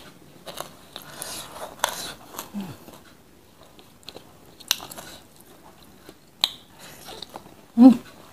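Close-miked hand-eating: chewing and biting with a few sharp crunchy clicks, while fingers pick at rice on the plate. A short hummed vocal sound near the end is the loudest moment.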